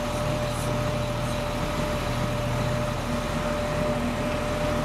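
Idling vehicle engine: a steady low hum with a constant higher whine over it.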